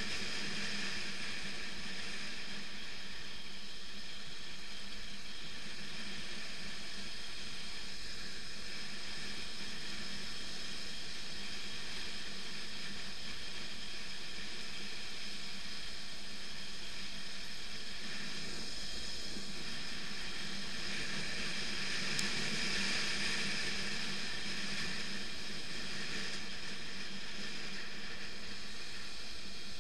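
BMW F 650 GS motorcycle riding steadily along a gravel road: the engine's steady running mixed with tyre and wind noise, swelling a little about two-thirds of the way through.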